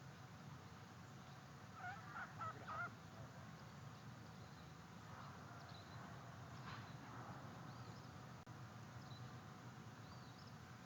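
Common loon giving a brief, faint cluster of wavering calls about two seconds in.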